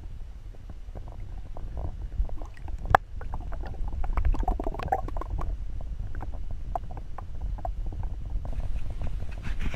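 Muffled underwater sound picked up by a submerged camera: a steady low rumble with scattered small clicks and one sharper click about three seconds in. Around the middle there is a brief gurgle of moving water.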